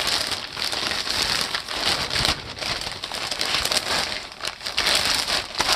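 Clear plastic bag crinkling and rustling as a stack of fabric samples is pushed back into it, a steady run of small crackles.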